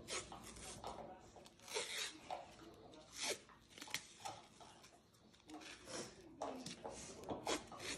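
White athletic tape being torn and pulled from the roll and rubbed down over an elbow, in several short ripping rasps.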